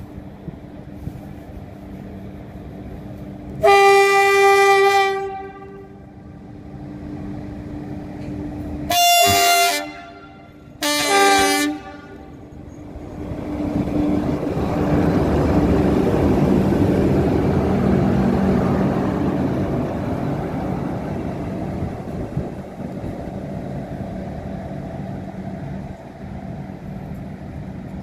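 Red CFR electric locomotive sounding its horn, one long blast then two short ones, then running close past with a rumble that swells and slowly fades, over a steady low hum.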